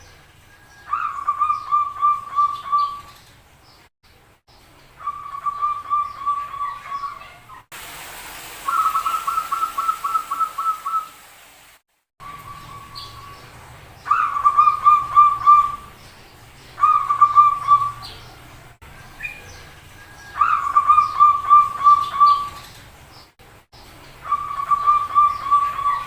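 Zebra doves (perkutut) cooing, several birds calling back and forth. About seven phrases, each one to two seconds long, open with a short higher note and then run into a rapid string of pulsed coos, a few seconds apart.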